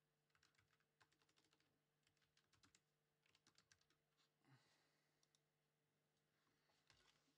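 Faint typing on a computer keyboard: several short runs of light clicks, with a soft rustle about four and a half seconds in.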